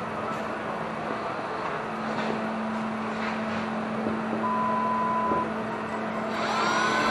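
Steady shop background noise with a low hum; about six seconds in, a cordless drill spins up with a rising whine as its bit is set against the sheet-metal patch panel.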